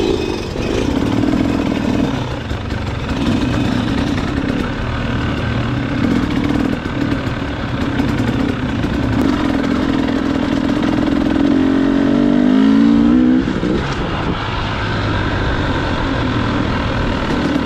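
Dirt bike engine running on a trail ride, heard from on the bike. The engine note climbs steadily for a couple of seconds about two-thirds of the way in, then falls away abruptly.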